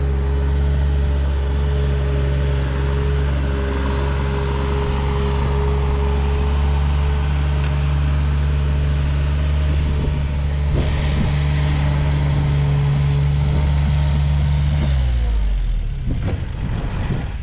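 New Holland LS140 skid steer's diesel engine running at a steady speed, then dropping in pitch and winding down about fifteen seconds in.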